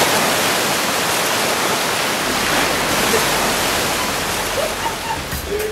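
Steady rushing of surf on a beach at night: an even wash of noise without separate wave crashes.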